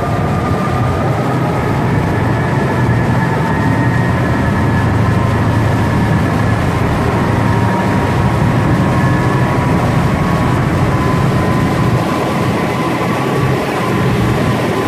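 Pilot boat's engines running loud and steady as it works close alongside a cruise ship, with a steady rush of noise and faint high whining tones on top.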